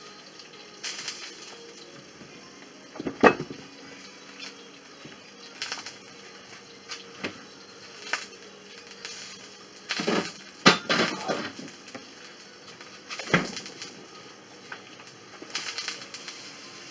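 Scattered knocks and clatter of kitchen handling as the stainless steel bowl of a kitchen robot is lifted out and taken away; the loudest is a sharp knock about three seconds in, with a busier run of clatter around ten seconds in.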